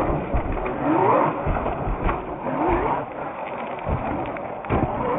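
Traxxas Maxx 1/10-scale electric RC monster truck's brushless motor whining up in two short rising bursts, with sharp knocks as the truck tumbles through front flips.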